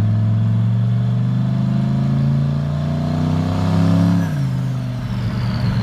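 Turbocharged truck engine accelerating under load, its pitch climbing steadily while a turbo whistle rises above it. After about four seconds the throttle is lifted: the engine pitch drops sharply and the turbo whistle falls away.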